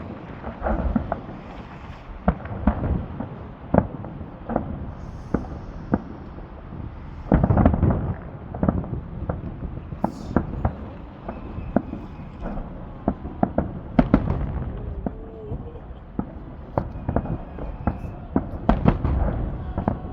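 Fireworks salute going off: a rapid, irregular series of bangs and pops, with a heavy cluster of booms near the middle and again near the end.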